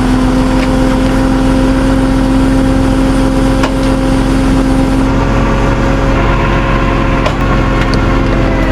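A truck engine running at a steady speed: an even, unchanging drone, with a couple of faint clicks partway through.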